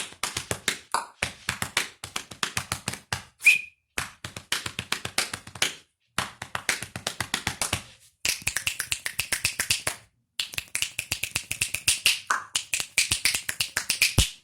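Body percussion: a fast, steady rhythm of sharp clicks and pats from tongue clicks and palms slapping the chest and thigh, with short whistled notes early on and whistling running along with the beat in the second half. The rhythm pauses briefly twice.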